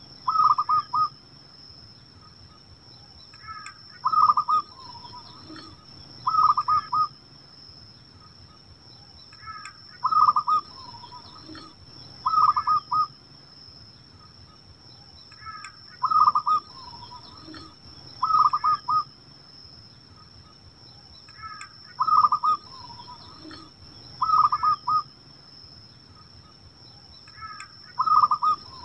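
Zebra dove (perkutut) cooing: a quick run of short coos ending in a lower drawn-out note, the phrases coming in pairs about every six seconds. A faint steady high-pitched whine runs underneath.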